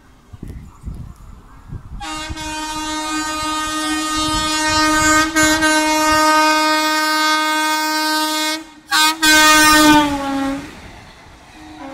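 WAP-4 electric locomotive's horn sounding one long blast of about seven seconds, then after a brief break a second blast whose pitch drops as the locomotive passes. Underneath, the train's wheels rumble and clatter at speed.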